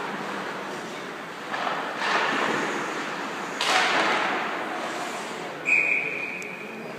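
Game play: a few sharp cracks and thuds over steady background noise, the loudest about three and a half seconds in. Then one short, high, steady whistle blast just before six seconds, typical of a referee stopping play.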